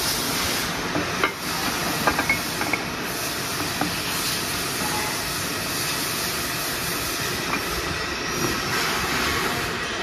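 Steady hissing machine noise from running equipment, with a few light metal clicks and knocks in the first few seconds as steel bending dies are handled and seated in the busbar bender.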